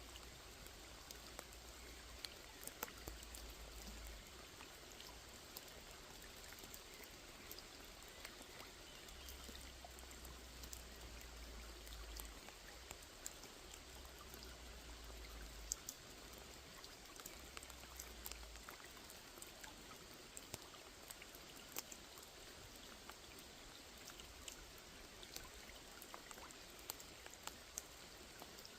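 Rain falling on a small pond: a faint, steady hiss of rainfall with scattered individual drops pattering on the water.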